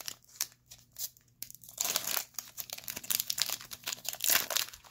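Foil wrapper of a Pokémon trading-card booster pack being torn open and crinkled: a string of sharp crackling rips, loudest about two seconds in and again near the end.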